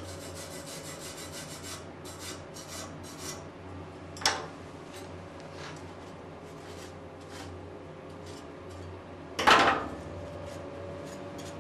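Brush scrubbing black flux residue off a freshly silver-soldered copper-to-brass joint held in a vise: quick strokes for about three seconds. Then a sharp knock about four seconds in and a louder knock near the end.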